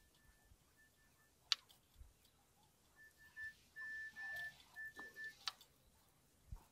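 Electronic bite alarm beeping in runs of short, high, same-pitched beeps: faint at first, then louder from about three seconds in. The beeping signals a bite on the line. A sharp click comes about a second and a half in, and another near five and a half seconds.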